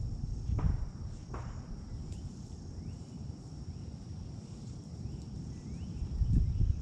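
Outdoor ambience: a steady high insect drone over an uneven low rumble. Two sharp knocks come within the first second and a half, and a few faint short rising chirps follow.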